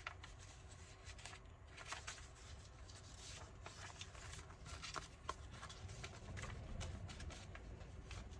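Faint rustling of paper and card being handled, with scattered light clicks and taps, over a low steady rumble.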